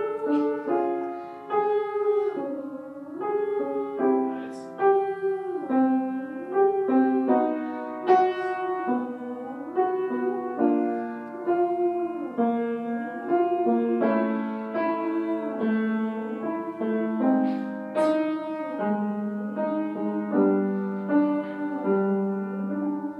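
Grand piano played continuously, a flowing run of notes and chords in the middle register.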